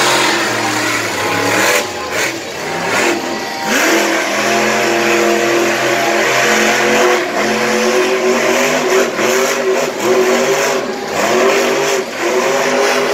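Monster truck engine revving hard through a freestyle run, its pitch climbing and falling, with brief drops off the throttle a few times.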